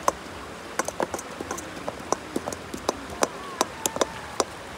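A stone knocking and clinking irregularly against a metal pan, about four sharp knocks a second, each with a short metallic ring.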